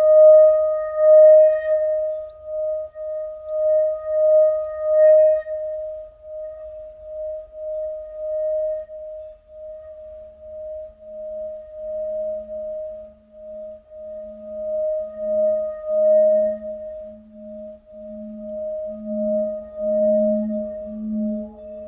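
Singing bowl sounding a sustained, wavering tone that pulses in volume. About halfway through, a second, deeper tone swells in beneath it and grows louder toward the end.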